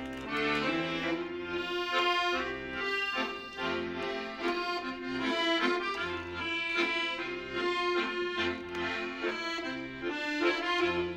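Solo accordion playing a tune: a melody over sustained chords, with low bass notes sounding on and off beneath.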